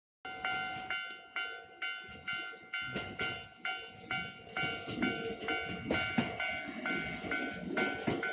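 Japanese level-crossing warning bell ringing steadily, about two strikes a second, with the rumble of an approaching train building from about halfway in.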